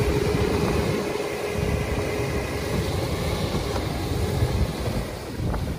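Sherp amphibious all-terrain vehicle on the move, its diesel engine and running gear making a steady low rumble. A faint steady tone over the rumble fades out about two seconds in, and the level drops sharply at the very end.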